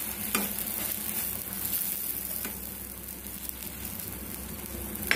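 Egg omelette sizzling in a frying pan, with a steel spatula scraping and tapping against the pan a few times as it is turned.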